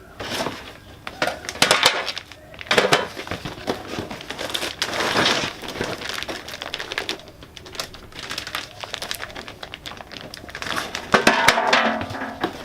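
Packaging being pulled apart and crumpled by hand while parts are unwrapped, in irregular crackling bursts, loudest near the end.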